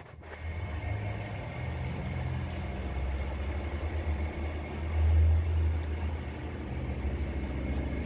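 A low, steady rumble of a running engine or motor, swelling about five seconds in and easing off again.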